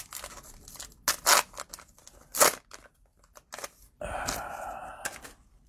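Trading-card pack's plastic cello wrapper being torn and crinkled by hand: a few short, sharp rips, then a longer rustle about four seconds in.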